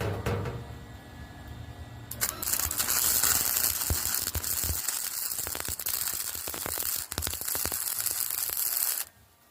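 Welding arc crackling steadily as a bead is laid on steel T-posts, starting about two seconds in and cutting off suddenly near the end when the arc is broken.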